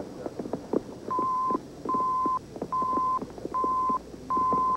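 TV station weather-alert tone: five steady beeps at one pitch, each about half a second long and a little under a second apart, over faint programme sound. The beeps signal a weather bulletin crawl, here a flash flood watch.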